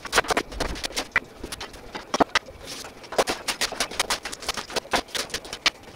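Kitchen knife slicing Japanese long green onion (naga-negi) on a plastic cutting board: an irregular run of sharp knocks, several a second, as the blade strikes the board.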